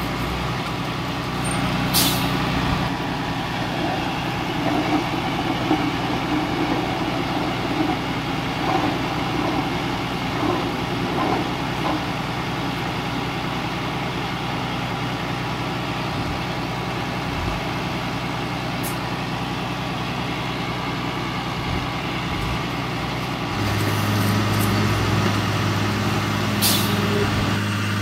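Diesel engines of heavy construction machinery running steadily, with three short hisses of air and a stronger engine note setting in near the end.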